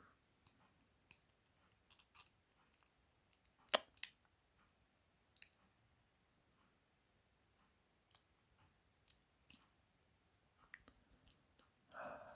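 Irregular small metallic clicks and taps of tweezers and tiny key pins being picked out of the chambers of a disassembled Assa Twin 6000 lock core. The loudest is a quick pair of clicks about four seconds in.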